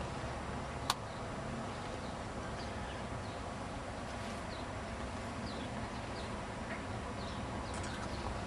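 Outdoor ambience: scattered short, high bird chirps over a steady low background noise, with a single sharp click about a second in.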